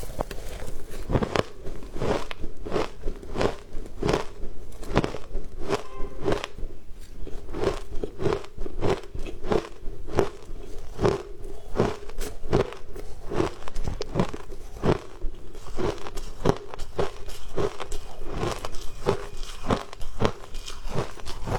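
Shaved ice being bitten and crunched between the teeth, in a steady run of crisp crunches about two or three a second.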